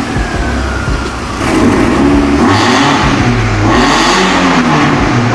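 Golf Mk4's 2.0 8-valve four-cylinder engine revving in the bay through a 2.5-inch stainless-steel exhaust with a custom final muffler. Its pitch rises and falls several times, louder from about a second and a half in.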